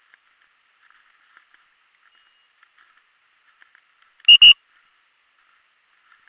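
Two short, loud electronic beeps on one high pitch in quick succession, over faint crackling of dry grass.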